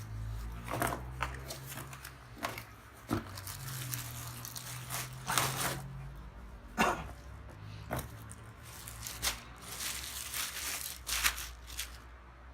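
Plastic packaging being handled and pulled open: irregular crinkling and tearing rustles, some sharper crackles, over a low steady hum.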